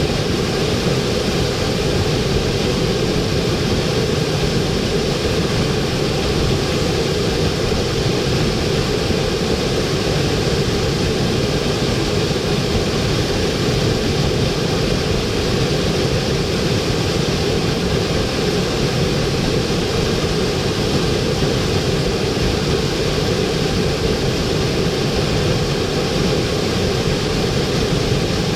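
Waterfall rushing: a steady, unbroken noise of falling water, fullest in its lower range, that does not change.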